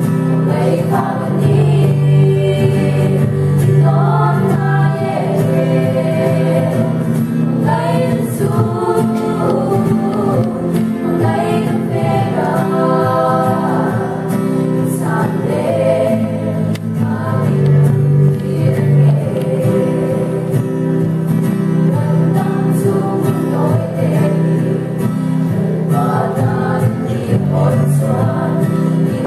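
A small group of young women singing together in harmony, accompanied by an acoustic guitar.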